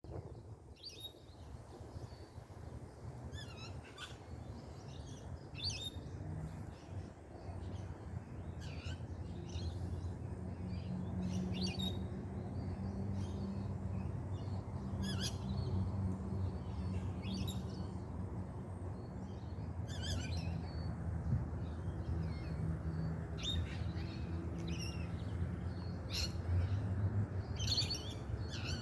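A flock of birds chirping and calling in a tree: short, high calls coming every second or so, sometimes in quick clusters, over a steady low hum.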